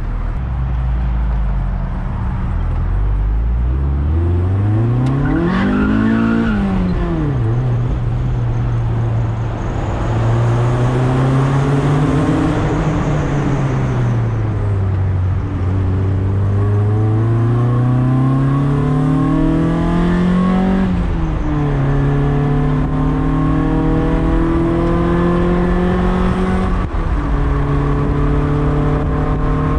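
Mazda Miata's four-cylinder engine pulling away from idle and accelerating through the gears of its manual gearbox: the pitch climbs in each gear and drops sharply at three upshifts, with a slower fall midway as it eases off. Wind and road noise of the open top run underneath.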